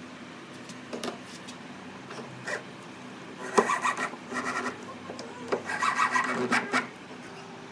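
A hand tool scraping over wood in two short spells of quick, repeated strokes, after a few light knocks in the first couple of seconds.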